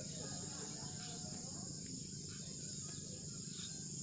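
Steady high-pitched chorus of insects, typical of field crickets, running unbroken in the background.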